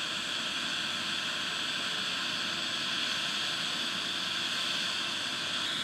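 A steady, even hiss of background machinery noise, with no distinct events.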